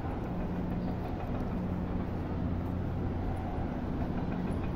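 Steady low engine hum of street traffic, a continuous drone with no sudden events.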